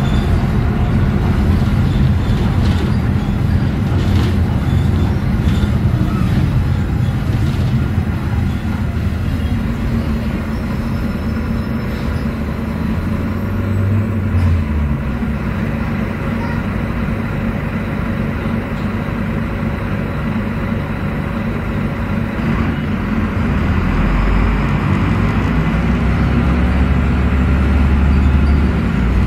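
Volvo D9B six-cylinder diesel and Voith automatic driveline of an articulated city bus, heard from inside the cabin. The low engine sound settles quieter past the middle, then builds again near the end as the bus works harder.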